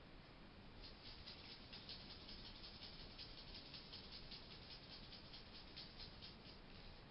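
A hedgehog making a quick run of short, hissy, sneeze-like puffs. They start about a second in and stop shortly before the end. The owner has since learned that this sound is a sign of a happy hedgehog, not of illness.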